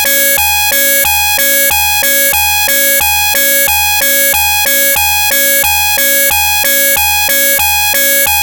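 Very loud, harsh electronic emergency-alert attention tone, two pitches alternating in a fast pattern that repeats a few times a second: the alert signal that opens a mock Canadian hazardous-spill emergency broadcast.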